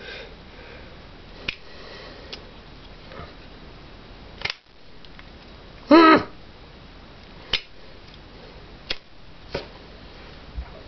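Vintage Scripto lighter's flint wheel being struck, sharp single clicks a second or more apart, until the lighter catches near the end. A brief, louder pitched sound comes about halfway through.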